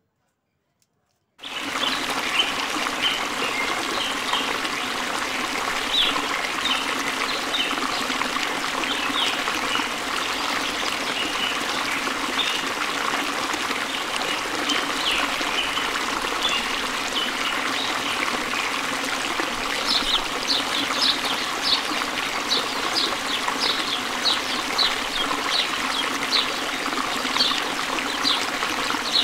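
Steady trickling of running water like a small stream, starting suddenly about a second and a half in, with short high bird chirps scattered over it that come thicker in the later part.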